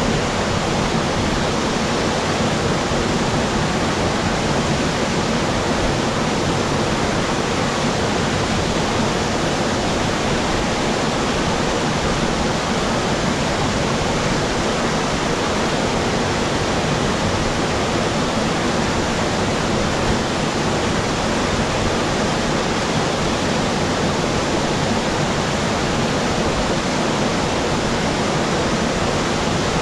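Waterfall crashing into its pool, a loud steady rushing roar of falling water heard close to the water surface.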